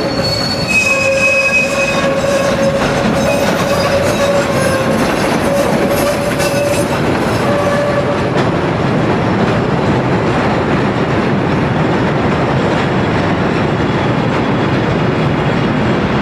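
Chicago 'L' rapid-transit train running on the elevated track, its wheels squealing in long, steady, high-pitched tones for the first half. The squeal then gives way to a steady rumble of wheels on rail.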